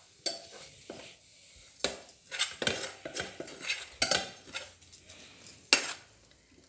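Metal spoon scraping roasted khoya out of a metal kadhai onto a steel plate: a run of short scrapes and clinks of metal on metal, about ten strokes, the sharpest one a little before the end.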